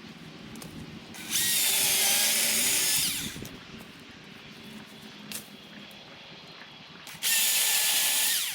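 Milwaukee Fuel battery-powered chainsaw cutting firewood in two bursts of about two seconds and one second, a high whine that drops in pitch each time the trigger is released.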